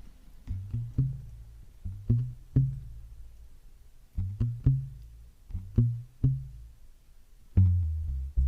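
Instrumental ending of a pop song: groups of short, low notes with sharp percussive attacks, closing on one long held low note about seven and a half seconds in.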